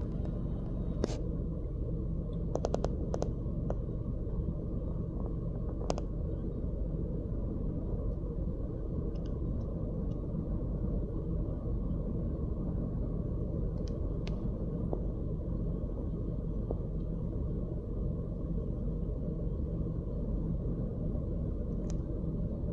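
Steady low rumbling noise with no pitch to it, broken by a few sharp clicks, including a quick cluster of them about three seconds in.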